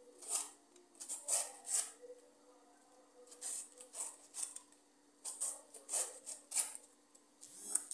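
Kitchen knife shredding a hand-held head of cabbage into thin strips: runs of crisp slicing strokes, about two a second, with short pauses between the runs. A faint steady hum underneath.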